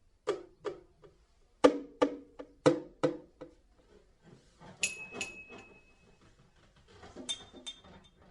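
Percussion music: a run of sharp, pitched struck hits with short decays, about two to three a second, then a high ringing tone with a few lighter taps, and more hits with another high ring near the end.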